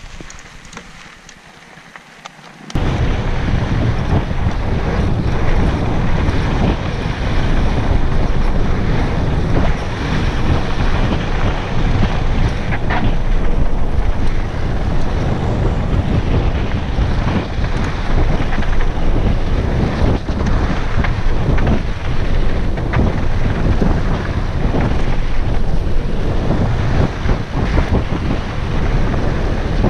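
Heavy wind buffeting an action camera's microphone as the mountain bike it rides on descends a dirt singletrack at speed, mixed with the rattle of the bike over trail bumps. It starts abruptly about three seconds in after a quieter opening and then stays loud.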